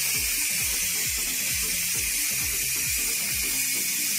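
Elite electric pressure cooker's steam release valve venting steam at the end of cooking, a steady loud hiss as the built-up pressure is let off by hand. A low repeated flutter runs under the hiss and dies away near the end.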